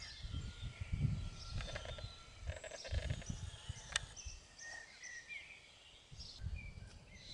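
Small birds chirping with short, scattered calls, over low gusty wind rumble on the microphone. A single sharp click comes about four seconds in.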